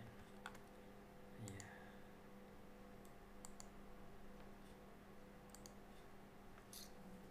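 A handful of faint computer mouse clicks, spaced a second or more apart, over a low steady hum.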